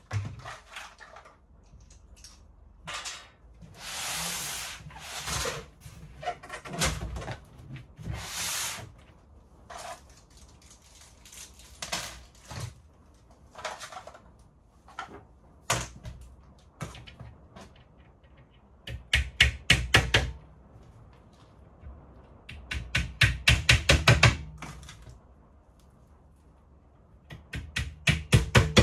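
Flat-pack cabinet assembly: scattered knocks, thuds and short rustles of panels and tools being handled, with three bursts of rapid tapping in the second half.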